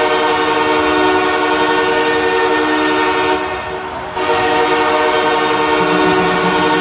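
Ice hockey arena goal horn blowing a deep, chord-like blast that breaks off about three seconds in and starts again a moment later, dubbed over the roar of an arena crowd after a game-winning basket.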